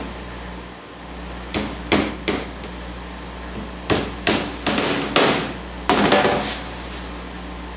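Hammer driving tacks through canvas into wooden stretcher bars: sharp taps in short clusters of two to five, with pauses between the clusters.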